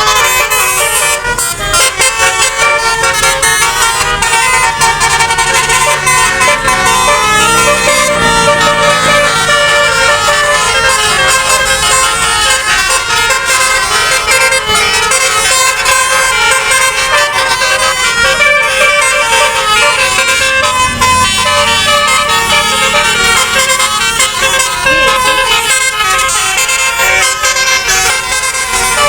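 Telolet bus horn, a multi-tone musical horn, playing a continuous run of tunes with several tones sounding at once and changing every fraction of a second.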